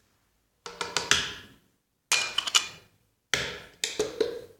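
A kitchen utensil knocking and clinking against a mixing bowl in four short bursts of sharp taps, each dying away quickly, as lemon zest and salt are added to batter.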